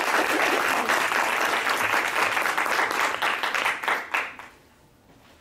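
Audience applauding, the clapping dying away about four and a half seconds in.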